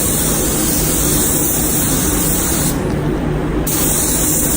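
Spray gun hissing as primer is sprayed: a burst of about three seconds, a pause of about a second, then a second burst, over a steady low background rumble.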